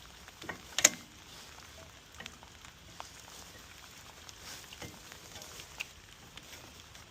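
Scattered sharp metallic clicks and taps from hand work on a car's rear brake caliper, most likely the anti-rattle spring being fitted. One loud click comes about a second in, then a few fainter ones over a quiet background.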